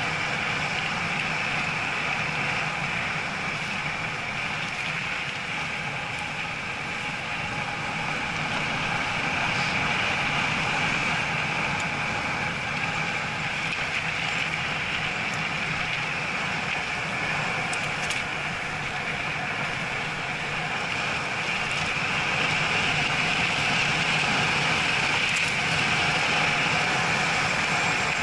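Bicycle rolling fast down a weathered concrete bobsleigh track: steady tyre rumble on the concrete and wind rushing over the camera microphone, growing louder about two-thirds of the way through as the speed picks up.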